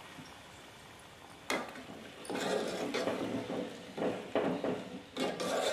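Metal ladle stirring curry in a metal pot, scraping and knocking against the pot several times, starting about a second and a half in.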